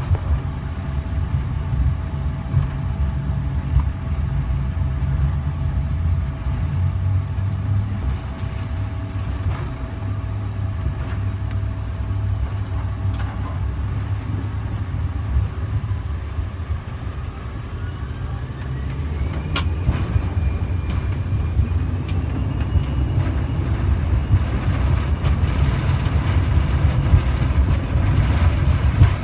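Cabin noise inside a Bombardier CRJ-700 regional jet: a steady low rumble from its rear-mounted jet engines and airflow, with a few clicks. About two-thirds of the way in, a whine rises in pitch and then levels off, and the rumble grows slightly louder.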